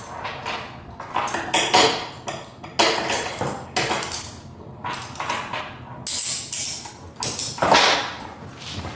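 Irregular metallic clinks and knocks, a few light rattles spaced unevenly, with handling noise between them, typical of handcuffs moving on the wrists.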